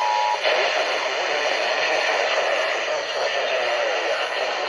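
The two-tone EAS attention signal cuts off in the first half second. Broadcast radio audio follows, with heavy steady hiss and faint, indistinct speech-like sound underneath.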